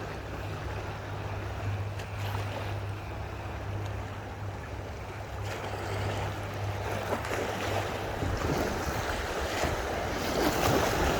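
Rushing, splashing water with wind buffeting the microphone, growing louder in the last few seconds, over a low steady hum.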